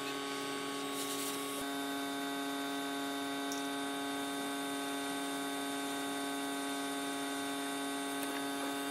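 A steady electrical hum made of several held tones, with a short hiss of airbrush spray about a second in.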